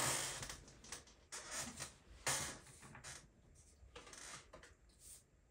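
Tarot cards being shuffled and handled, a string of short papery rustles and light slaps at uneven intervals.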